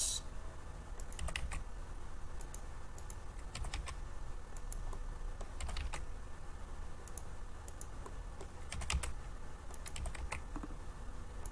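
Computer keyboard keys pressed in short, scattered clicks, over a low steady hum.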